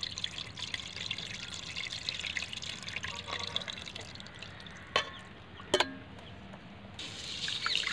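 Tamarind water poured from a steel bowl into a metal pot of small fish, splashing and trickling as a hand swishes it through the fish. Two sharp clinks about five and six seconds in, then more splashing near the end.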